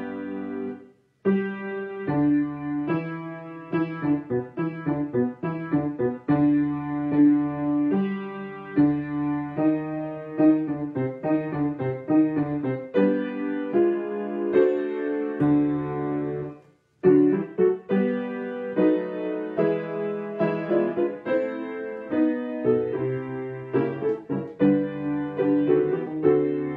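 Solo piano playing an introduction, the brass not yet in, in flowing struck chords and runs, breaking off twice briefly: about a second in and again around two-thirds of the way through.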